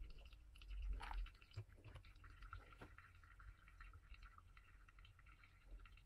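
Faint pour-over brewing: a thin stream of hot water from a gooseneck electric kettle falls onto wet coffee grounds in a paper filter, with a soft knock about a second in. After that comes a fine, steady crackle and drip as the coffee bed drains.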